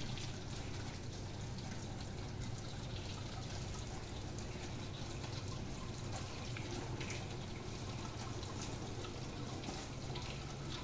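Water running steadily, with a few faint clicks of handling.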